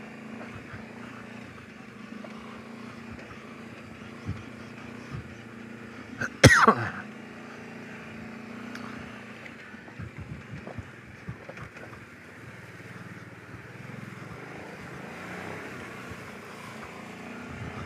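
Kawasaki Brute Force 750 ATV's V-twin engine running steadily at low speed while crawling over a rocky trail. About six and a half seconds in there is one brief loud sound.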